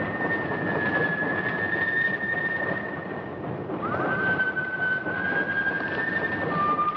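A slow tune whistled in a few long held notes, each sliding up into place, with a new phrase about four seconds in. Under it runs the steady rumble of a moving train.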